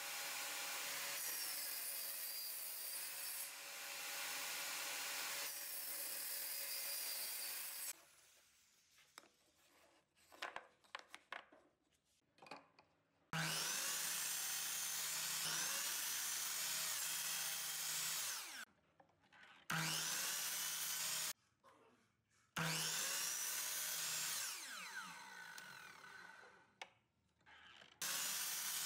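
A table saw runs through a cut on a crosscut sled. After a few quiet seconds of small handling clicks, a Ryobi sliding compound miter saw starts with a sudden whine and cuts short blocks of wood three times, and starts a fourth cut near the end. The third cut fades out as the blade winds down.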